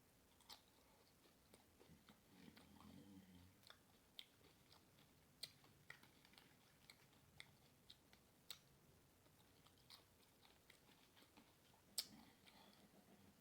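Faint close-up chewing of cheesy Doritos nachos: scattered crisp crunches and wet mouth clicks, with one louder crunch near the end.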